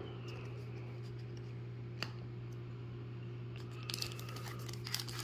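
Quiet handling of trading cards on a table: a single light tap about two seconds in, then small rustles and clicks near the end as a foil card pack is picked up, over a steady low hum.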